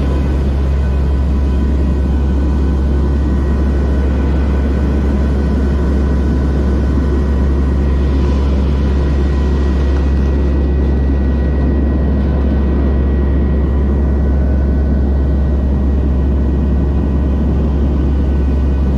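Hurricane-hunter aircraft in flight, its engines and propellers giving a loud, steady low drone with a faint steady whine above it.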